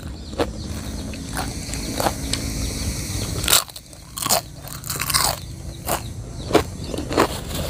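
Crispy deep-fried spinach chips crunching as they are bitten and chewed: a run of sharp, irregular crunches, the loudest about three and a half seconds in.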